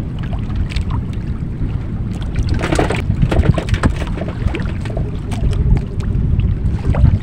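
Wind buffeting the microphone on a small outrigger fishing boat at sea, a heavy steady rumble with scattered light knocks.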